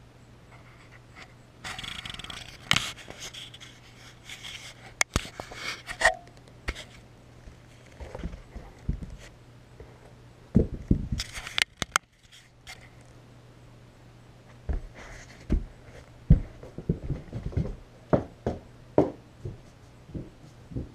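Handling noise from a camera being moved and set down on a carpeted floor: a stretch of scraping and rustling, then sharp knocks about halfway through and a run of low thumps and clicks near the end.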